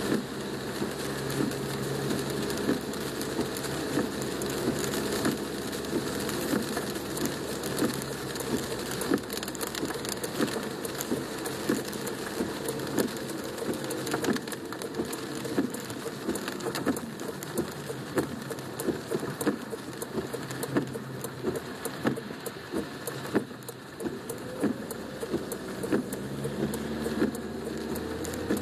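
Rain drops hitting a car's roof and windshield, heard from inside the cabin as a dense, uneven patter over a low steady hum from the car.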